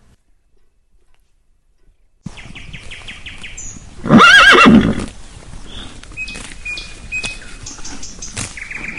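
A horse neighing once: a short whinny of just under a second with a quavering pitch, about four seconds in. Around it are a steady background noise and a few scattered clicks.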